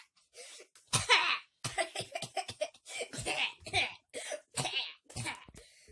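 A child laughing an evil villain's laugh in a long string of short bursts, loudest about a second in.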